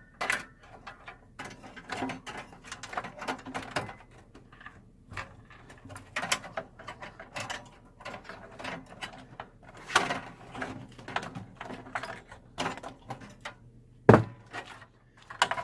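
Clicks, rattles and scrapes of metal computer-case parts being handled as a desktop PC's power supply is worked loose, with a sharp knock near the end.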